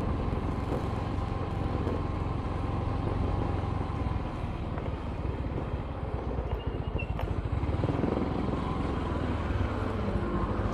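Steady low engine and road rumble of a vehicle driving along a street.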